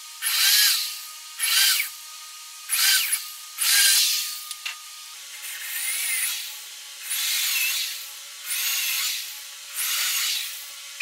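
Corded electric drill boring into a wooden board in about eight short bursts. The motor's pitch rises and falls with each trigger pull.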